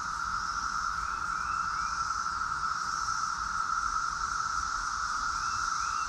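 Chorus of Brood X periodical cicadas: a steady, unbroken drone, with a few faint short rising chirps about a second in and near the end.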